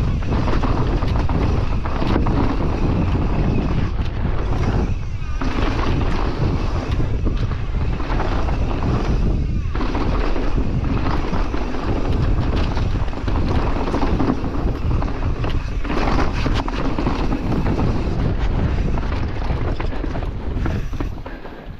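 Wind rushing over the bike-mounted camera's microphone as a mountain bike descends at speed, with its tyres rolling over dirt and the bike rattling in many small knocks. The noise eases briefly twice.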